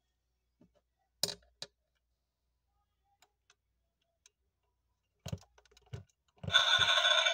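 Small plastic clicks and taps as the 1:18 die-cast Audi A6L model is handled and pressed. Near the end, the model's built-in sound unit switches on and plays a loud electronic sound effect through its tiny speaker, with no deep bass.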